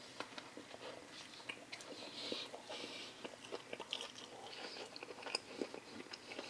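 A person chewing a bite of jalapeño-cheddar sausage in a soft bun: faint, scattered wet mouth clicks and smacks.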